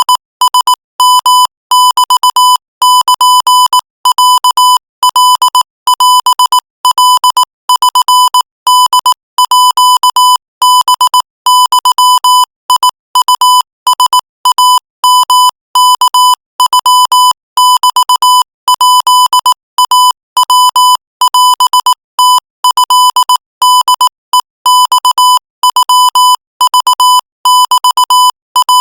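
Morse code sent at 22 words per minute: one steady-pitched electronic beep keyed rapidly on and off in short and long elements, with brief gaps between letters and words.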